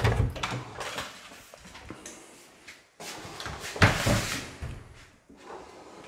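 Wooden interior door being handled, with knocks and a clatter. The loudest is just under four seconds in.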